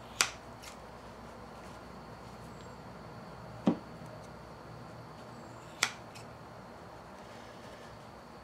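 Scissors snipping while trimming memory foam: three short sharp clicks of the blades a few seconds apart, the middle one a duller knock, over a faint low hum.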